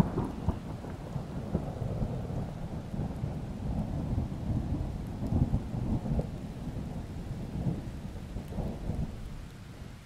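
A low rumble that swells in just before the start, goes on with uneven surges and fades out near the end.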